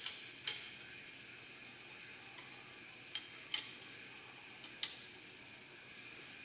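Metal hand tools clinking against the steel clamping hardware of a milling machine setup: about five sharp metallic clicks, two near the start and three between three and five seconds in, some ringing briefly, over a steady background hum.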